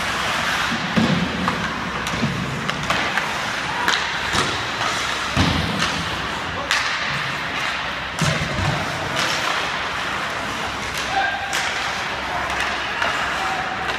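Ice hockey game play: sharp clacks and several dull thuds from sticks, puck and boards, about a second in, around the middle and past eight seconds, with brief distant shouts from the ice.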